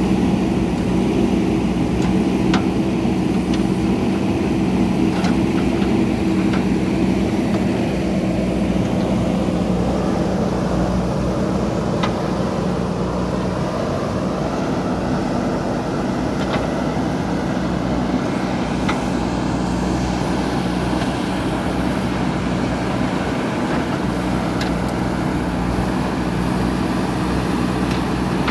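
JCB 3DX Super backhoe loader's diesel engine running steadily while it digs, with a few faint sharp clicks along the way.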